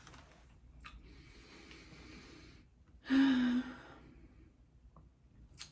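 A person breathing in softly, then letting out a short voiced sigh about three seconds in, with a couple of faint clicks around it.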